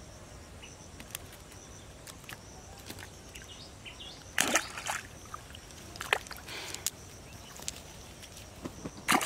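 Scattered rustles and light clicks of a wet cast net being handled and gathered up on a grassy bank, with louder rustling bursts about four and a half seconds in and again at the very end.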